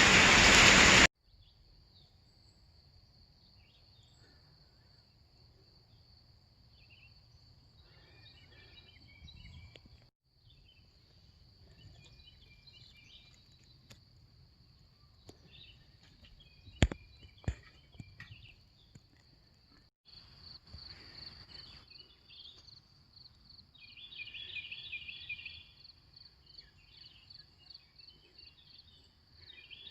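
Steady high-pitched insect chorus in a quiet rural field, with scattered bird chirps and two sharp clicks near the middle. A loud noise at the very start cuts off abruptly about a second in.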